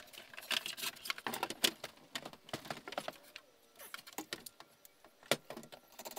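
Irregular clicks, taps and knocks of a sheet-metal electrical panel box and its stiff service cables being handled and set against a wall.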